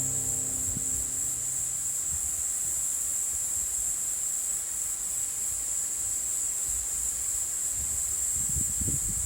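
Steady, high-pitched chorus of insects, one even drone with no breaks, with a few low rumbles near the end.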